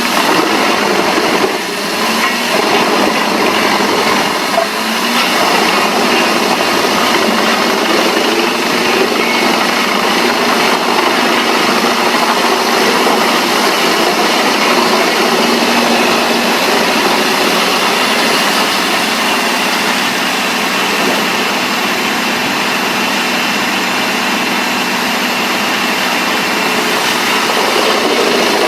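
Engine-driven wood-processing machine running steadily and loudly, with a dense mechanical clatter and no pause.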